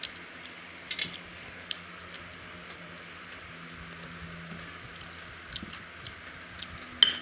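Eating by hand from steel plates: scattered small clicks and squelches of fingers working rice and curry, with a sharper, briefly ringing click near the end.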